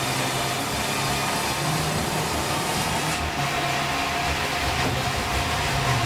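Sawmill saw cutting a large meranti log as it is fed through on the carriage: steady machine noise with a constant whine over a low hum.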